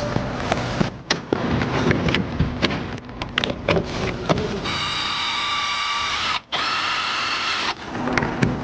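Workshop clatter of sharp clicks and knocks. In the middle a power tool runs with a steady whine for about three seconds, cutting out briefly once.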